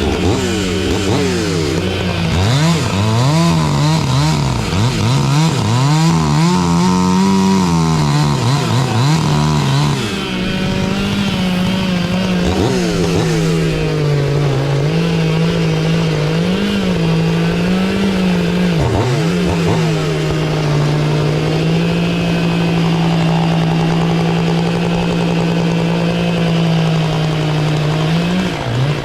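Stihl MS 500i two-stroke chainsaw cutting through a log at full throttle. The engine pitch wavers and dips repeatedly as the chain loads in the wood, then runs steadier in the later part of the cut.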